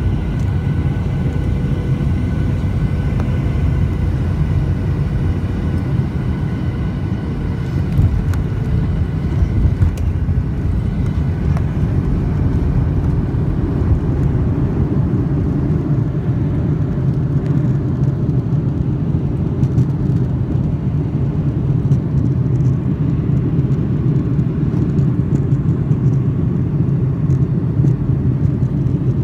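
Jet airliner cabin noise during landing: a steady engine drone with faint whining tones that fade out, two thumps about eight and ten seconds in as the wheels touch down, then a heavier rumble from about twelve seconds in as the plane rolls along the runway.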